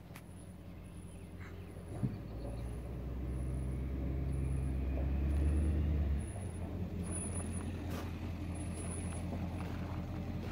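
A truck engine running with a low, steady hum that builds over the first six seconds and then drops suddenly, with a single knock about two seconds in.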